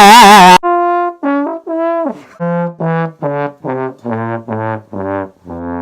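A loud sung 'wah' with a wavering pitch, then a descending run of about a dozen short brass-like notes, trombone-like in tone, ending in a long low held note near the end.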